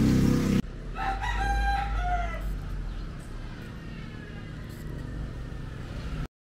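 A loud low-pitched sound cuts off abruptly about half a second in. Then a rooster crows once, a call of about a second and a half whose pitch drops at the end, followed by faint outdoor background.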